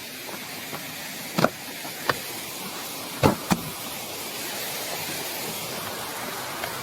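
Steady rush of a small waterfall and stream pouring over rock, with a few sharp knocks in the middle.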